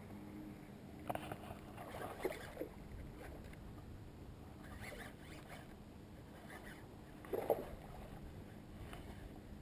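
Short bursts of splashing from a hooked fish at the water's surface, about a second in and again near the end, over soft handling noise from a baitcasting reel being wound in.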